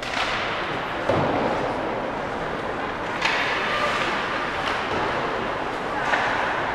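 Ice hockey skates scraping and hissing across rink ice during play, with a thud about a second in and several more scrapes after.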